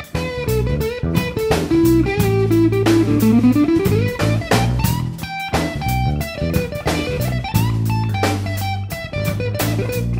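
Background music: a guitar-led track with electric guitar and a drum kit keeping a steady beat.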